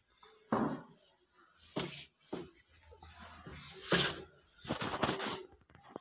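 Sawdust bedding being pushed and spread across the floor of a wooden bird cage with a long stick: a handful of separate rustling, scraping strokes, the loudest about four seconds in.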